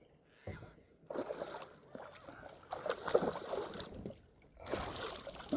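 Water splashing and sloshing around a kayak, with a thump about half a second in, as a hooked smallmouth bass is fought to the boat.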